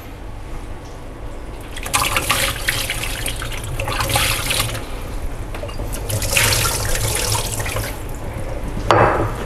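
Battered tilapia fillets deep-frying in hot oil in a frying pan, a loud sizzling crackle. It surges about two seconds in and again around six seconds, with a short burst near the end.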